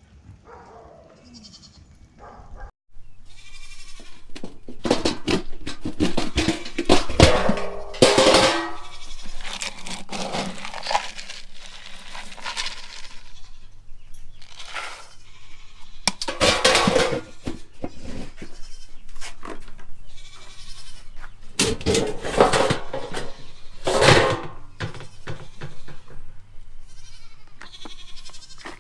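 Nigerian dwarf goats bleating again and again, with the loudest calls around a quarter, a half and three quarters of the way through, and short knocks and clicks in between.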